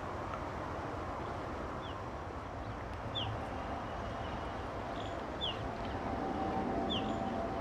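A small bird gives short, falling chirps every second or two over a steady low rumble. Near the end a steady siren-like tone comes in.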